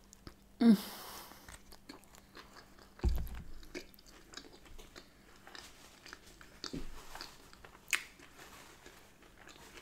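A bite into a soft smoked salmon bagel, loudest just under a second in, followed by close-up chewing with a full mouth and small wet clicks. A dull thump comes about three seconds in.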